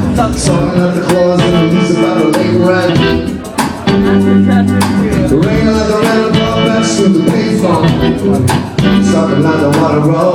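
Live band playing a song: guitar over a steady beat, in a gap between sung lines.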